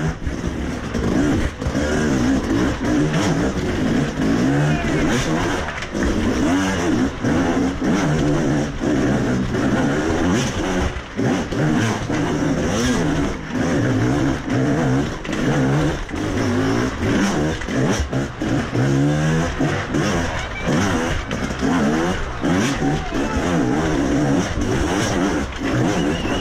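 Enduro motorcycle engine heard from on the bike, revving up and down again and again in short blips of throttle while riding over stone steps, with frequent knocks as the bike strikes the steps.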